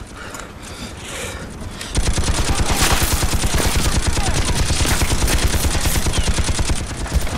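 Heavy automatic gunfire, a dense rapid fusillade that breaks in suddenly about two seconds in, with bullets striking sandbags, and eases off near the end.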